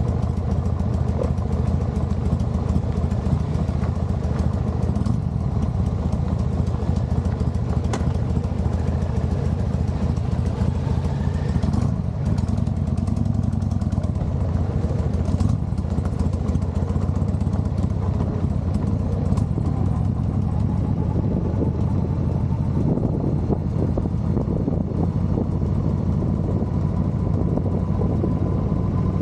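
Motorcycle engine running steadily, with a faint tone that rises slowly over the last several seconds.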